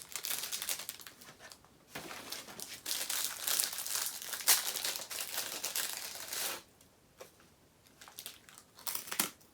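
A crinkly snack packet rustling as it is handled and torn open: a short spell of crinkling, then a longer dense one that stops about six and a half seconds in, and a few brief crinkles near the end.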